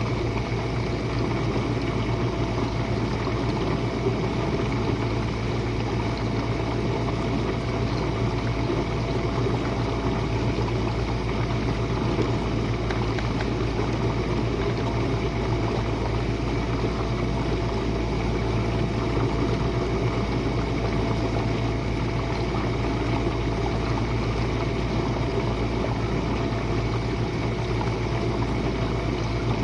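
Jenn-Air dishwasher running its Quick Wash cycle: a steady motor hum under an even wash of noise, with no change in level throughout.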